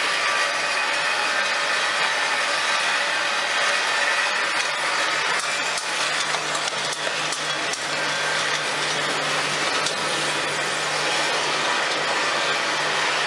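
Automatic inline screw-capping machine running: a steady mechanical whirr from its motors and conveyor, with scattered light clicks as plastic bottles and caps pass through. A low steady hum joins in about five seconds in.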